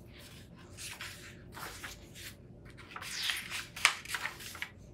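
Paper pages of a hardcover picture book being turned by hand: a series of short rustling swishes, loudest and busiest near the end, with a sharp snap of a page about four seconds in.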